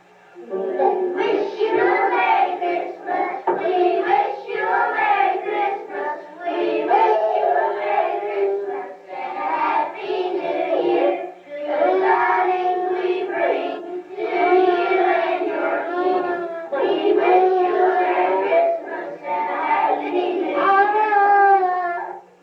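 Children singing a song, in sung phrases of a few seconds each with short breaks between them.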